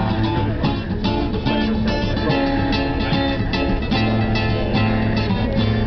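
Acoustic guitar strummed in a quick, steady rhythm over sustained low notes.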